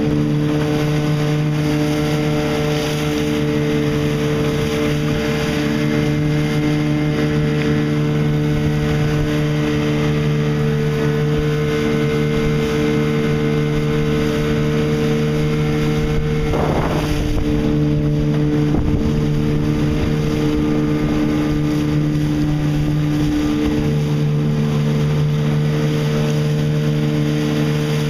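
Tiller-steered outboard motor running at a steady cruising speed, pushing a small boat through choppy water, with wind buffeting the microphone. A brief rush of noise breaks in about two-thirds of the way through.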